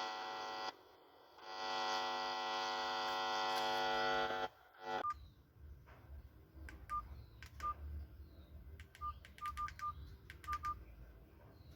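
Electronic tones from a Bluetooth speaker driven by a TDA2030 amplifier. There is a buzzy held tone of about three seconds, then a run of short, single-pitch beeps with clicks between them.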